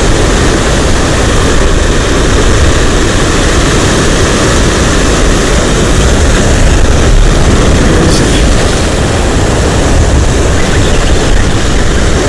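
Strong wind buffeting the microphone: a loud, steady noise, heaviest at the low end.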